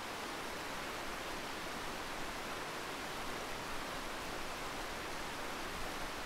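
Steady rushing of a fast-flowing stream running over rocks.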